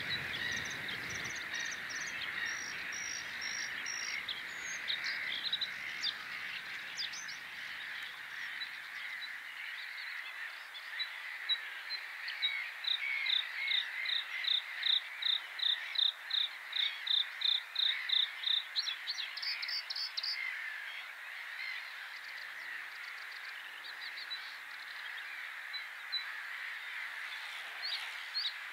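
Male bluethroat singing, with other birds chirping around it; about halfway through, one sharp note is repeated about three times a second for several seconds. The song is the late-summer second song peak, sung to re-establish territory before a second brood.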